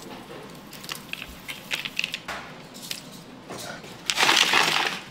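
Dry straw and dried sweet wormwood (개똥쑥) being dropped and stirred by hand in a plastic bucket: scattered crackling and rustling. Near the end there is a louder, denser rustle lasting about a second as the bucket is handled.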